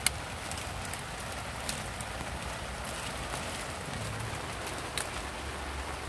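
Steady rain falling, an even hiss, with a few sharp ticks scattered through it.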